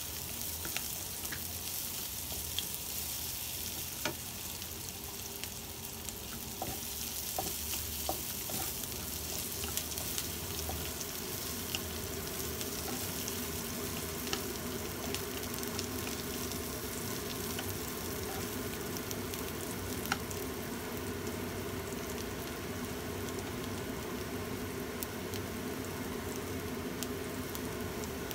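Sliced shallots and garlic sizzling steadily in hot oil in a nonstick wok, stirred with a spatula that clicks and scrapes against the pan now and then.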